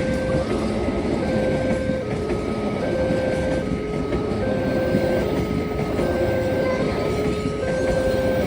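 Railway level-crossing warning alarm switching back and forth between two tones, each held for about 0.7 s, over the rumble and wheel clatter of a passing train.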